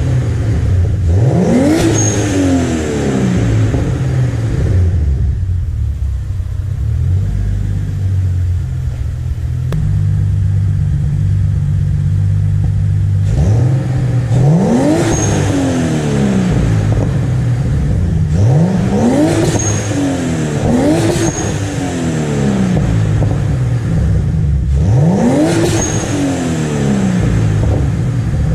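Turbocharged BMW M52B28TU straight-six, breathing through a full 3-inch exhaust with a Magnaflow muffler, being free-revved in five quick blips that rise and fall back to idle. It idles steadily for about eight seconds between the first and second blips, and a short high whistle sounds at the top of most blips.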